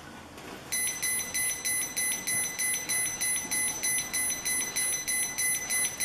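ENV RD10 RF meter's built-in speaker sounding its alarm: a rapid series of high-pitched beeps starting about a second in. The meter is signalling RF above its 0.5 mW/m² threshold from a cell phone nearby that is being called.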